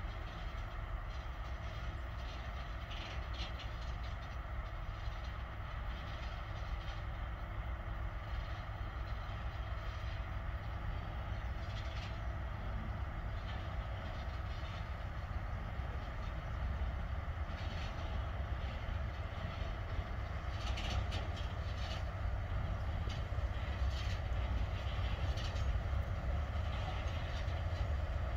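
A heavy freight train of loaded timber wagons, hauled by two locomotives, approaching: a steady low rumble that grows louder in the second half, with a few faint clicks.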